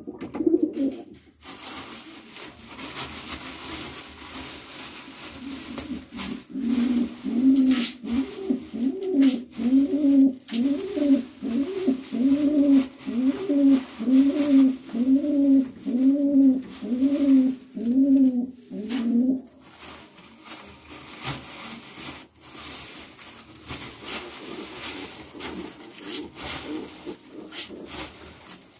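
Domestic pigeon cooing: a steady run of rising-and-falling coos, about one a second, starting about six seconds in and stopping about twenty seconds in.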